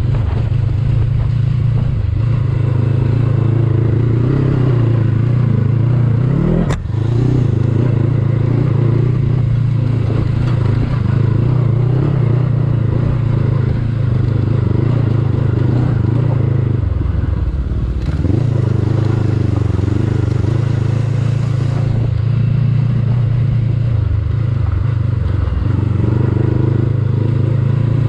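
Honda CB500X's parallel-twin engine running under load on a steep dirt climb. About seven seconds in, the revs rise briefly and are cut off by a sharp click. Around seventeen seconds the engine note drops lower, then picks back up.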